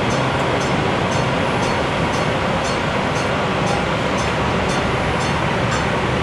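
Steady running noise inside a light rail car in motion: a constant rumble of wheels on rails and the car's equipment, with a faint high ticking about three times a second.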